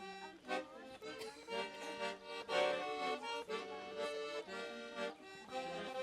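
Instrumental interlude between the sung verses of a song: a melody over a steady rhythmic accompaniment, with no singing.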